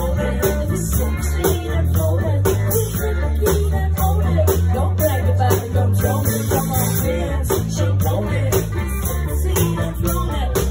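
Live band playing an upbeat song with a pulsing bass line and a steady drum beat.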